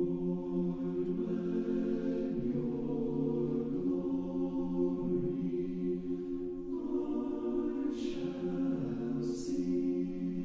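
A choir singing a slow hymn in long, held chords that change every second or two, with the hiss of sung 's' and 'sh' sounds near the end.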